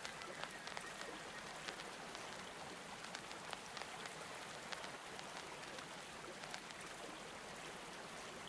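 Faint steady water sound like light rain, with scattered soft clicks.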